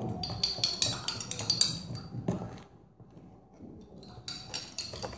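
Small spoons clinking and scraping against plastic tubs and a cup as slime is stirred. Quick light clinks come first, then a quieter pause a little past the middle, then more clinks near the end.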